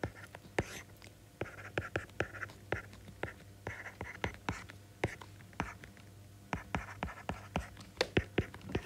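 A stylus tapping and scratching on a tablet's glass screen while writing numbers by hand: a run of sharp, irregular clicks, about three or four a second, with faint scratchy strokes between them.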